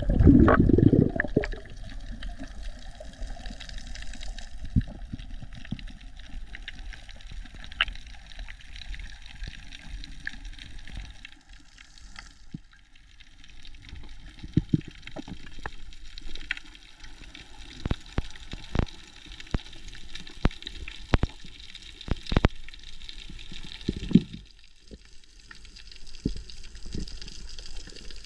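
Water heard from underwater, muffled and steady, with a loud bubbly rush in the first second or so. Scattered sharp clicks and knocks come through it, most often in the second half.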